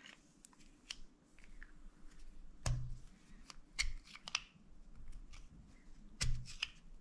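Spoon handle being worked into a Favero Assioma power-meter pedal body to push out the old bearings: irregular small clicks, scrapes and knocks of metal against the pedal and bearings, the sharpest knocks nearly three seconds in and again a little after six seconds.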